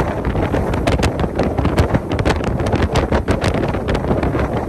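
Wind buffeting the microphone aboard a boat under way: a loud, steady roar with constant crackling, over the running noise of the boat moving through the water.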